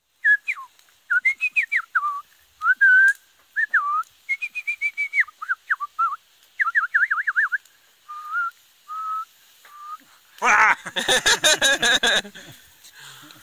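A man whistling through pursed lips: a quick run of short sliding notes with a few warbling trills. About ten and a half seconds in, it breaks into a burst of laughter.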